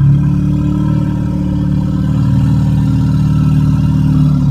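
Sound effect of a Columbian mammoth's call: one long, low, rough call held steady.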